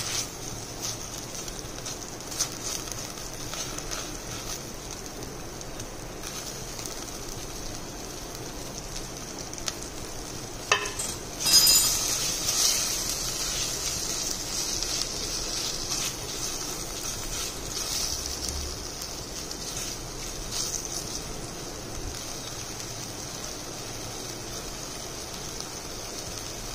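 Onions and ginger-garlic paste sizzling in hot oil in a pan, with a spatula scraping and stirring. About twelve seconds in, chopped tomatoes go in with a few knocks and the sizzle grows louder, then settles back.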